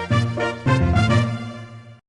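Upbeat intro jingle with a bouncy rhythm and bass, fading out and ending near the end.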